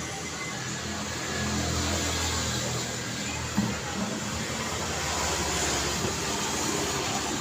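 Busy street traffic: vehicle engines running and passing over a steady road-noise roar, with a low engine hum swelling and fading in the first half. A short sharp sound stands out about halfway through.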